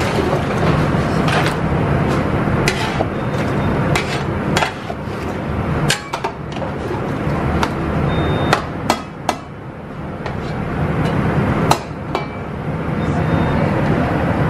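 A large metal spatula scraping and knocking against the sides of a big aluminium cooking pot as a curry is stirred, giving irregular sharp clanks over a steady hiss.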